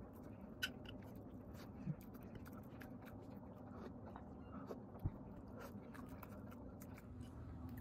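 Quiet eating sounds: a metal fork scooping soft baked sweet potato off a ceramic plate, with small scrapes, a few sharp clinks of fork on plate, and soft chewing.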